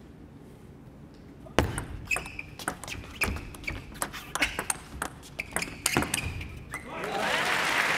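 Table tennis rally: the plastic ball clicking off the rubber paddles and the table in quick alternation, about three hits a second, starting with the serve about a second and a half in. Crowd noise rises near the end as the point finishes.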